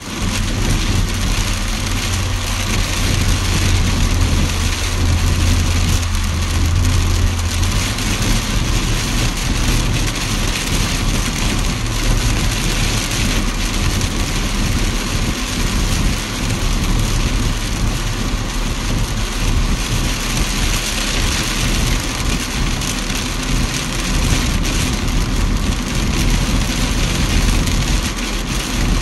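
Heavy hurricane rain beating steadily on a car's windshield and body, heard from inside the car, over a steady rumble of the car's engine and tyres. A low drone sits under it for about the first eight seconds, then drops away.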